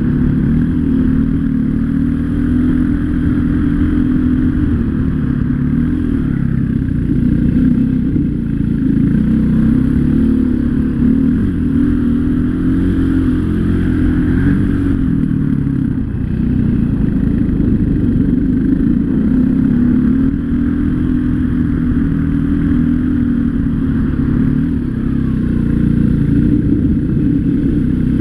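Off-road dirt bike engine running as the bike is ridden along a dirt trail, its pitch rising and falling every few seconds with the throttle.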